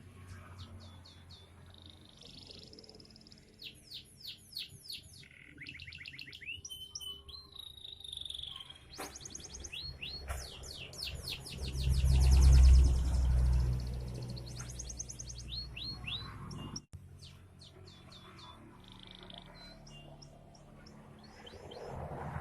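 Domestic canary of the carrot-yellow colour variety singing: quick repeated chirps, fast trills and rising and falling whistled phrases. A loud low rumble breaks in about halfway through.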